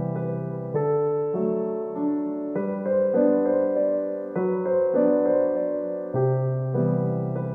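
Background music: a slow solo piano piece, with sustained notes and chords changing about once a second.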